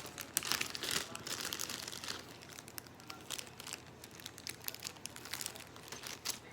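Plastic packaging crinkling and rustling as it is handled, in irregular crackles and small clicks, loudest in the first couple of seconds.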